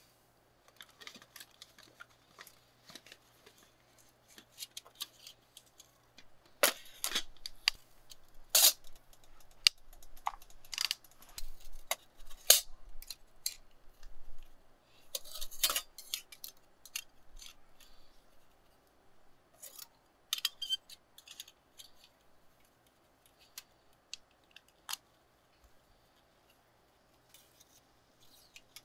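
Titanium camp-stove parts being handled and fitted together on a thin metal table: a pot lifted out of its bag, then a curved titanium stand-windscreen sheet and its pins. The sound is irregular light metallic clinks, scrapes and rattles, with a few sharper clinks around a quarter of the way in and near the middle, and it thins out toward the end.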